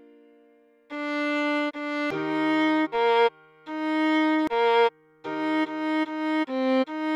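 Viola playing a melody as a run of separate bowed notes, starting about a second in, over a lower held note.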